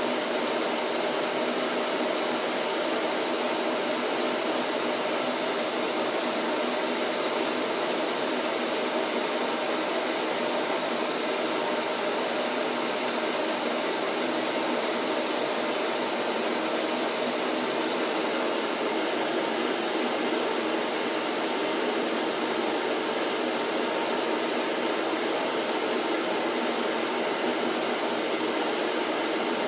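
Vacuum cleaner running steadily, a constant whooshing motor-and-airflow hum with no change in speed.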